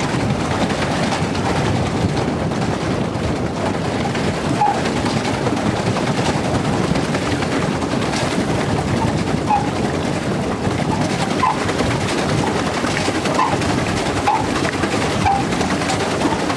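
Steady rushing water noise from a pedal boat moving across a lake, with short faint chirps every second or two in the second half.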